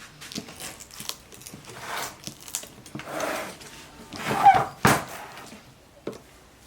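Hard objects being handled, with scraping, rustling and light knocks, and one sharp knock about five seconds in.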